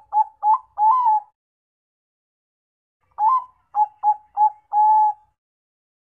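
Zebra dove (Bangkok perkutut) cooing its staccato song. A run of short coos ends about a second in, and after a pause a second phrase of five coos follows, the last one drawn out.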